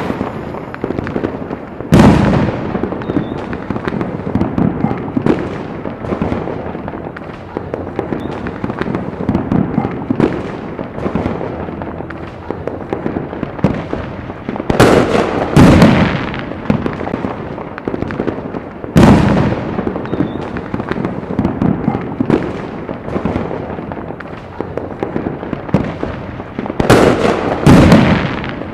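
Fireworks going off: a steady stream of crackling and popping, with big bangs about 2 seconds in, twice around 15 to 16 seconds, again near 19 seconds, and twice near the end.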